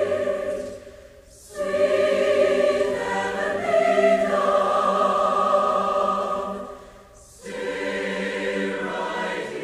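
A choir singing slow, held chords, breaking off briefly between phrases about a second in and again about seven seconds in.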